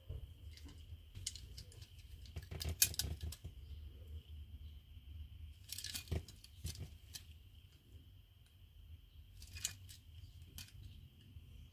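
Hands handling toy-car packaging and a small die-cast car: scattered clicks, taps and crinkles, busiest about three seconds in and again around six seconds in. A faint steady high-pitched whine sits behind them.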